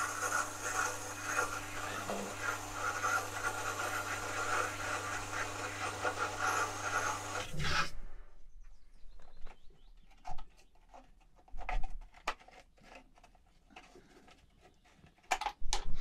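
Electric jet-type well water pump running with a steady hum, filling the rubber-bladder pressure tank to flush dirt out of it, then stopping abruptly about eight seconds in. After it stops there are only scattered light clicks and knocks.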